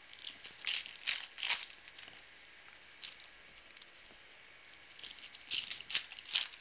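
Foil wrapper of a football trading-card pack crinkling as it is torn open by hand. It comes in two bunches of sharp crackles, one in the first second and a half and another from about five seconds in.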